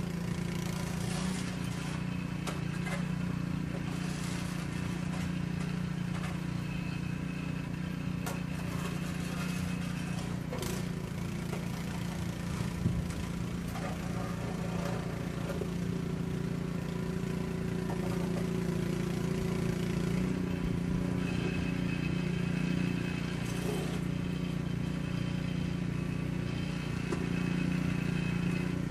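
An engine running steadily, a constant low hum throughout, with one sharp knock about halfway through.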